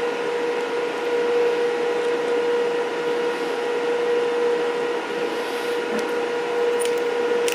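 Cooling fan of a Stahlwerk MIG 135 M IGBT inverter welder running with a steady hum while the machine is switched on.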